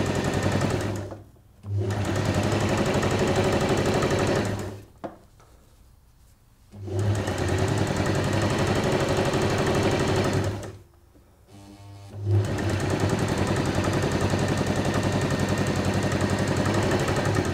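Electric domestic sewing machine stitching a seam at a steady speed in four runs, stopping briefly three times between them.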